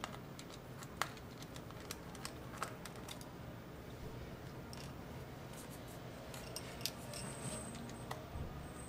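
A few scattered light clicks and small scrapes of a hand tool working on the internals of an open MacBook Air, with a faint steady room hum behind them.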